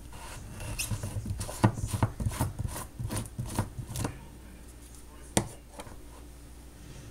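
Screw-on blade base being twisted off a plastic personal blender cup: a run of short clicking, scraping strokes from the plastic threads. A single sharp knock follows about five seconds in.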